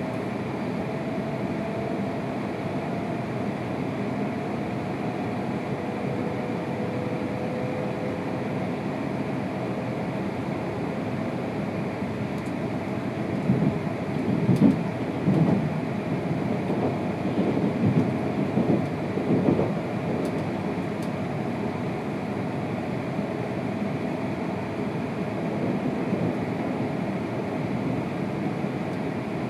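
Cabin noise of a Tohoku Shinkansen train pulling out of a station and gathering speed: a steady rumble of the running gear with a faint whine. For several seconds around the middle the rumble grows louder and rougher.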